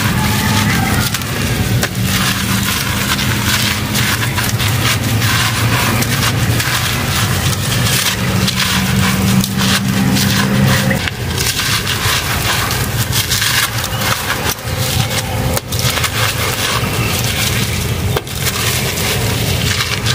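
Dry sand-cement chunks crushed and crumbling in bare hands, the grit and powder sifting down onto a gritty concrete floor: a dense, continuous crackle of many small grains. A low steady hum runs underneath.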